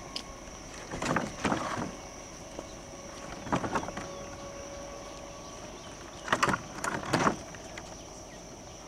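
Approaching electric multiple-unit commuter trains, their wheels clattering in three short groups of clicks over the rail, over a faint steady background with a thin high tone.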